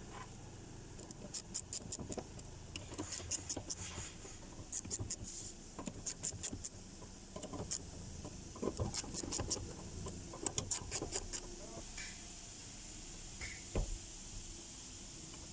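Short runs of quick clicks and light knocks from hand tools being worked on a fuel pump assembly as it is fitted back into the tank.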